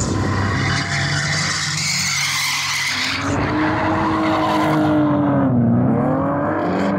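Two drift cars sliding in tandem: engines revving hard with tyres screeching. The screech is strongest over the first three seconds. Later the engine note drops and climbs back as the revs fall and rise again.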